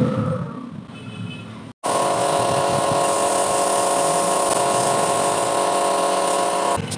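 Airbrush spraying paint: a steady hiss of air with a whining tone in it, starting suddenly about two seconds in and stopping just before the end. Before it, masking tape being peeled and handled on the bodywork.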